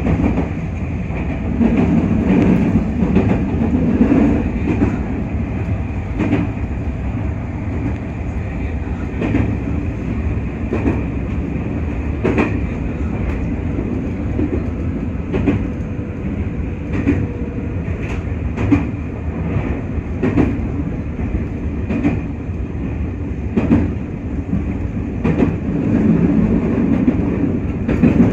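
JR West 221 series electric train running at speed, heard from inside the car: a steady rumble of wheels on rail with repeated clicks and knocks from rail joints.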